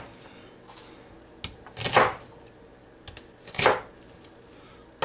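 Kitchen knife cutting a raw onion into chunks on a plastic cutting board: two firm cuts about a second and a half apart, each with a lighter tap of the blade just before it.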